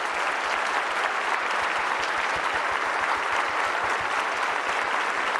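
Large audience applauding steadily, a dense wash of clapping from a big hall full of people.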